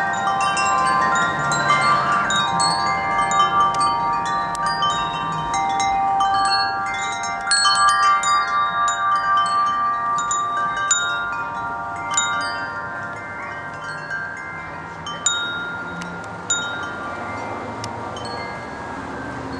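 Tubular wind chimes ringing in the wind, their strikes overlapping into a lingering cluster of bell-like tones. The strikes come thickest in the middle, then thin out to a few single, clear strikes that ring on.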